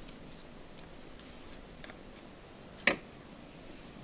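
iPhone 5 earpiece, front camera and proximity sensor ribbon connector being pressed into its socket: a few faint ticks, then one sharp click nearly three seconds in.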